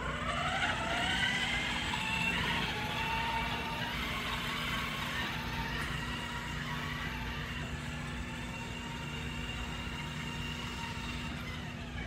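Electric motor of a remote-control car carrying a toolbox, whining up in pitch as it pulls away and then running at a steady whine. A constant low hum sits underneath.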